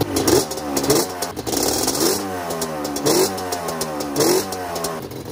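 Yamaha Banshee's twin-cylinder two-stroke engine running and being blipped by hand, the pitch rising and falling back about five times, roughly once a second.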